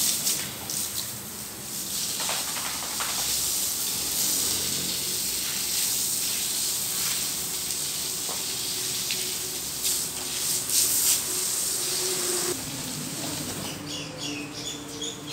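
Steady hiss of water spraying from a garden hose onto a wet tiled floor, fading away near the end.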